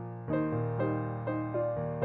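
Background piano music, with notes struck in a steady pattern about twice a second and a new, louder chord about a quarter second in.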